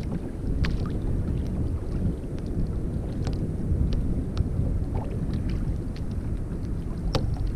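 Wind buffeting the microphone in a steady low rumble, with a few brief sharp ticks scattered through it.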